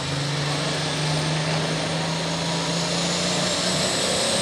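Diesel engine of a super farm pulling tractor running steadily, with a thin high whine that climbs slowly toward the end.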